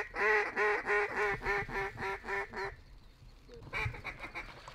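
Duck call blown in a hen-mallard quacking series: about ten quick, evenly pitched quacks, four or so a second, fading toward the end, then a shorter, softer run of quacks about a second before the end.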